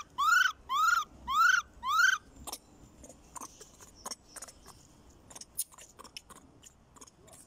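A macaque giving four short, arched, high-pitched calls in quick succession, about two a second, over the first two seconds. After that come scattered faint clicks.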